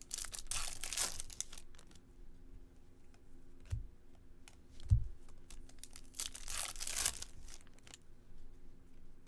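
A Topps Chrome baseball card pack's foil wrapper being torn open and crinkled. There are two long tearing rips about six seconds apart, with a couple of soft thumps between them.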